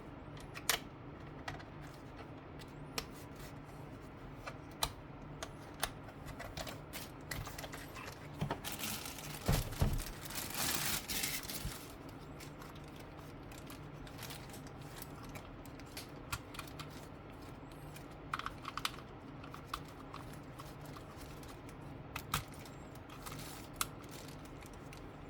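Keys of a Rapoo computer keyboard being pressed: scattered single key clicks, with a denser stretch of clicking and handling noise about nine to twelve seconds in.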